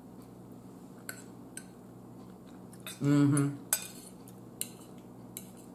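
Metal fork clicking against a glazed ceramic bowl a few times, scattered light taps while picking at the food. A short vocal sound comes about three seconds in.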